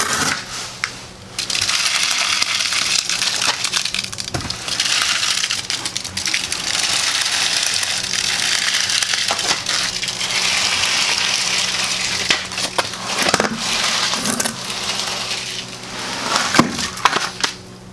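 Soft, wet concrete mix sliding and slopping out of a tipped plastic bucket onto a concrete floor, a steady gritty pour lasting about ten seconds. A few sharp knocks come near the end.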